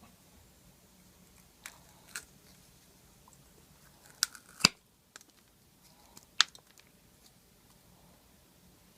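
Scattered sharp clicks and scrapes of a hand tool picking and prying chunks of hardened glue out of the knot socket of a shaving brush handle, about five in all, the loudest about halfway and another about two-thirds of the way through.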